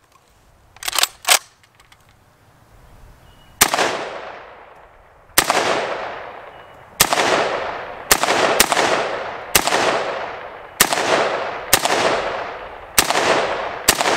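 A VZ 2008 (vz. 58-pattern) semi-automatic rifle firing 7.62x39 steel-case rounds: about ten single shots at roughly one a second, each followed by a long echoing tail. About a second in, before the first shot, there are two short clicks from handling the rifle.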